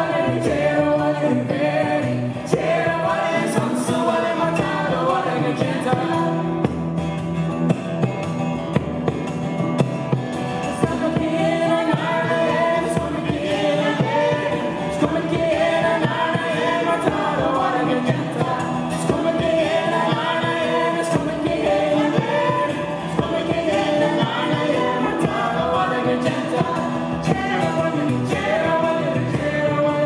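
A live folk group singing several voices together over keyboard, fiddle, acoustic guitars and a bodhrán frame drum.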